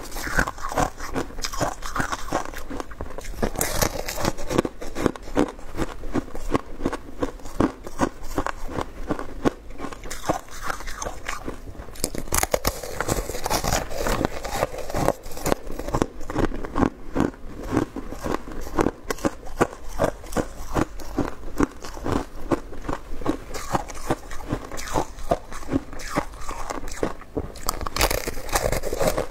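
Someone biting and chewing frozen shaved ice: a steady run of close-together crisp crunches and cracks.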